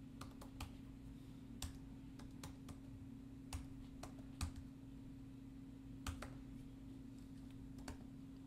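Faint, slow typing on a computer keyboard: a dozen or so separate key clicks at an irregular pace, over a low steady hum.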